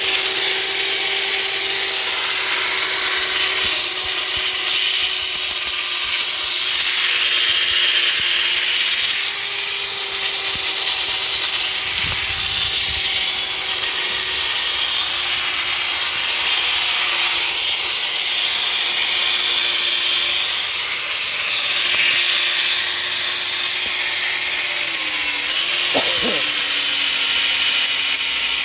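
Electric drill boring steadily into a broken steel stud, with the motor whining and the bit grinding against the metal. About three-quarters of the way through, the motor's pitch dips and settles lower as the bit bites harder into the hard steel.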